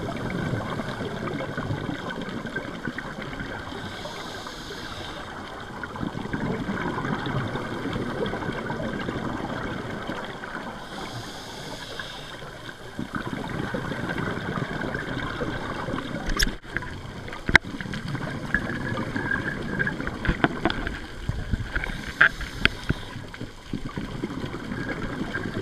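Underwater sound of a scuba diver breathing through a regulator: a high hiss of inhalation three times, and rumbling, gurgling exhaled bubbles in between. A few sharp clicks come in the second half.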